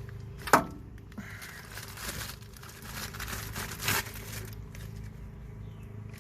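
A new front wheel hub assembly being handled and slid onto the spindle: a sharp metallic clack about half a second in, scraping and rustling, and another knock near four seconds in.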